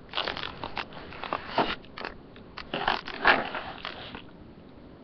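Close rustling, scraping and crackling, in two bouts of a couple of seconds each, then quieter; handling noise right at the webcam's microphone.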